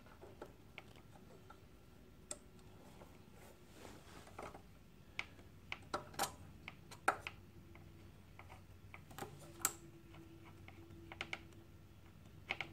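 Scattered, irregular light clicks and taps of small metal parts: the brake caliper's anti-rattle plate and its tiny screws being worked into place by hand against the plate's spring tension.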